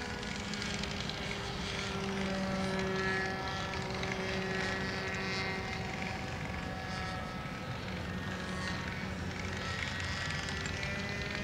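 Nitro (glow-fuel) engine and propeller of a radio-controlled airplane droning steadily overhead in flight. The tone wavers slightly and rises a little near the end.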